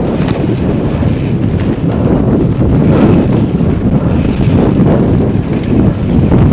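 Wind buffeting a helmet-mounted camera's microphone during a fast mountain-bike descent on a rough dirt trail: a loud, steady rush.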